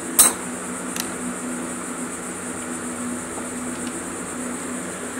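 A sharp clank from hand work on the engine block, with a fainter click about a second later, over a steady machine hum.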